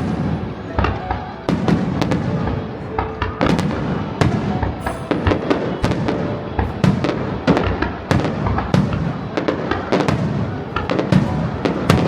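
Aerial fireworks bursting in rapid succession, with many sharp bangs and crackles several times a second, over music.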